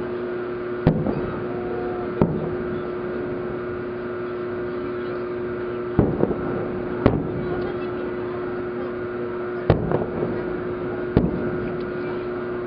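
Aerial firework shells bursting, six sharp booms at uneven intervals, over a steady hum.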